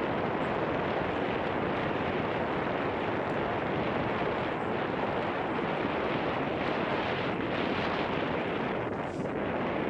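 Steady rushing wind noise on a helmet-mounted camera's microphone as a bike rolls down a gravel track, mixed with tyre noise on the gravel.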